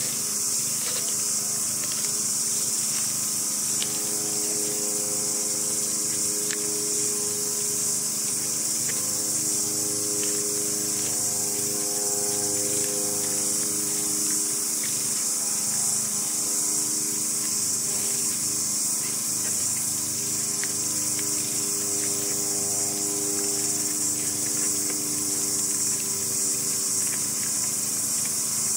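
A deer crunching corn kernels off a cob held in a hand, with many small crunches. A steady high-pitched hiss runs underneath and is louder than the crunching, and a generator hum comes and goes.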